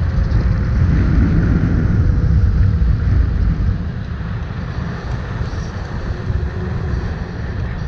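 Wind buffeting the microphone and tyre rumble from riding an electric scooter on a road, louder in the first half, with a faint steady motor whine underneath.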